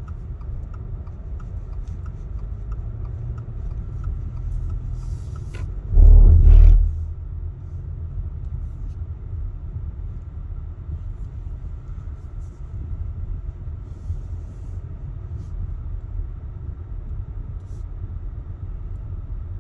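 Steady low rumble of road and engine noise inside a moving car. About six seconds in comes one loud, deep rumbling blast lasting under a second.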